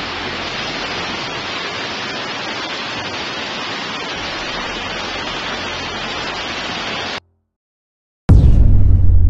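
Steady rushing hiss of floodwater pouring through a flooded subway station. It cuts off abruptly, and after about a second of silence a loud, deep booming rumble starts near the end.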